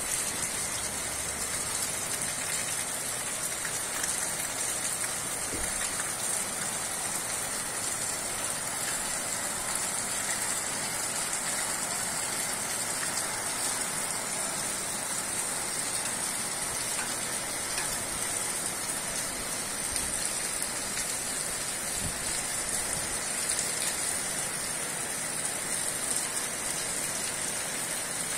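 Steady rain falling on the street and rooftops, a constant even hiss.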